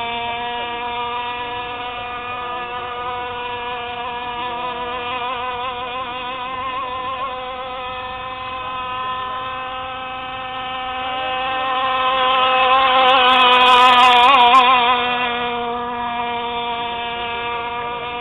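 Radio-controlled rigger boat's CY 26cc two-stroke petrol engine running at speed, a steady high-pitched buzz. It grows louder for a few seconds past the middle as the boat passes closest, then fades again.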